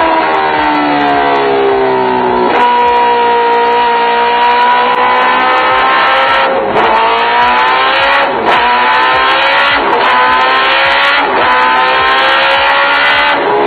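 2015 Kawasaki H2R's supercharged inline-four on its stock exhaust, run hard on a chassis dyno. The engine note climbs in pitch and drops sharply at each upshift, six times over.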